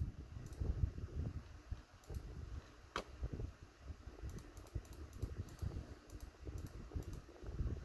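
Handling noise: irregular light knocks and small plastic clicks from hands moving model-kit parts, with one sharper click about three seconds in.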